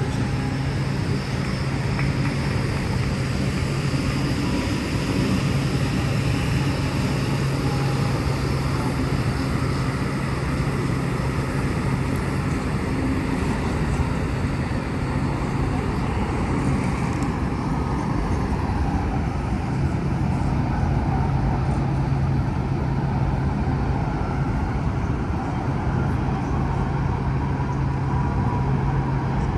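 Steady city traffic noise with a low, steady engine hum that fades for a few seconds midway and returns.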